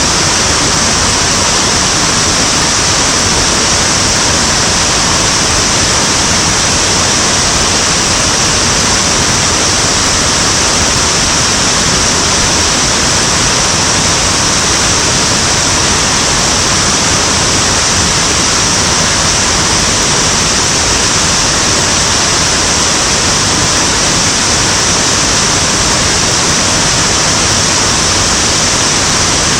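Loud, steady rush of water from a mountain stream pouring down a cascade.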